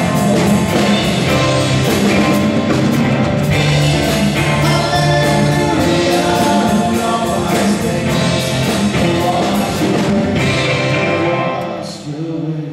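Live worship band playing with singing: keyboard, drums and guitar together, with regular drum hits. The music drops away about twelve seconds in as the song ends.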